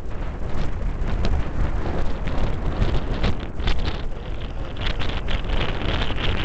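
Gusty wind buffeting the microphone over a low, steady rumble of an Airbus A340's four jet engines during takeoff.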